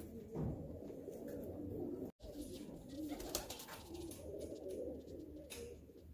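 Domestic pigeons cooing, a steady run of low, wavering coos with a few light clicks; the sound drops out for a split second about two seconds in.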